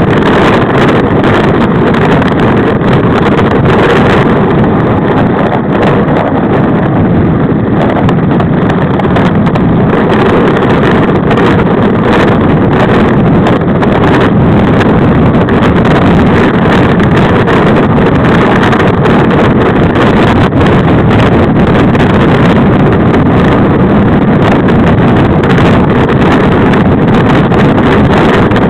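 Loud, steady wind noise buffeting the microphone of a camera on a bicycle descending a mountain road at speed.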